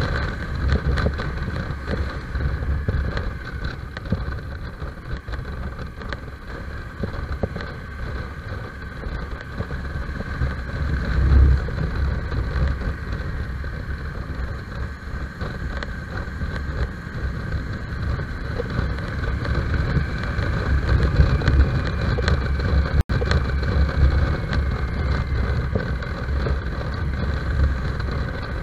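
Motorcycle engine running steadily on the move, heard from the rider's seat, with wind rushing over the microphone.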